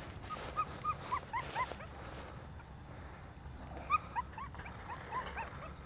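A dog whimpering in short, high-pitched yips, each rising then falling in pitch. They come in two runs of five or six, about three a second, with a pause of about two seconds between the runs.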